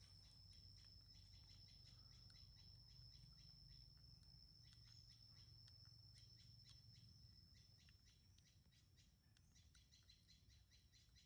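Near silence: faint, rapid high-pitched chirping over a steady thin high tone, with a low hum underneath, thinning a little near the end.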